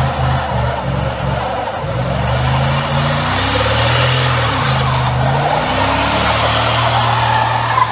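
Pickup truck doing a burnout. The engine revs hard, its pitch rising and falling a few times, over the steady screech of the spinning rear tyre on the pavement.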